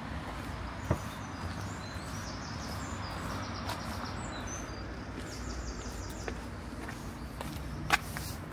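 Outdoor town ambience: a steady hum of distant traffic, with a small songbird singing two short phrases of rapid high repeated notes in the middle. A sharp tap sounds about a second in and a louder one near the end.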